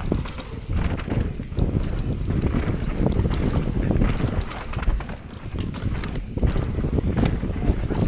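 Wind rushing over the microphone, with irregular knocks and rattles throughout.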